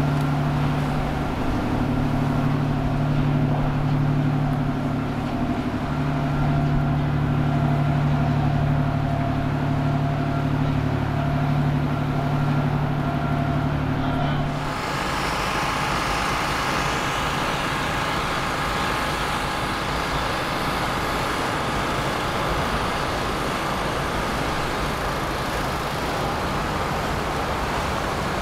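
Inboard engines of a Post sportfishing yacht cruising past at low speed, a steady low hum. About halfway through the sound changes abruptly to a broader rushing noise of engine and churning wake.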